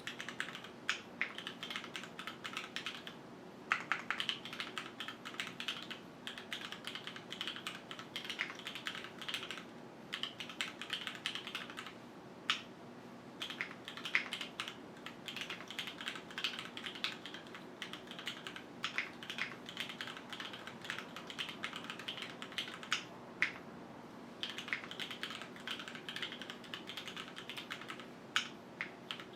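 Continuous typing on a QwertyKeys Neo 65 mechanical keyboard with Cherry HyperGlide Black linear switches, JTK keycaps and an aluminium plate, gasket-mounted with no foam: rapid runs of key clacks broken by a few brief pauses.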